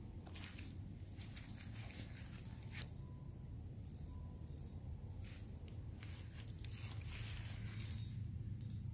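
Faint, scattered rustling and crackling of footsteps and movement through grass, over a low steady rumble.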